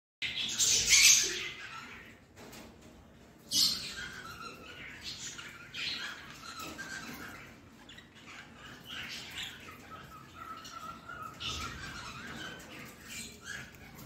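Budgerigars squawking and chattering: a loud shrill squawk near the start and another about three and a half seconds in, then quieter short chirps and warbling.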